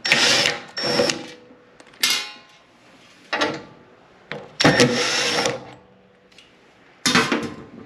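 Screws being taken out of a commercial washer's sheet-metal control-panel cover, heard as a series of short metallic scraping and rattling bursts, the longest just under a second near the middle.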